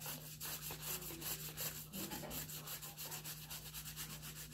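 Paint being scrubbed onto paper in quick back-and-forth rubbing strokes, about five a second.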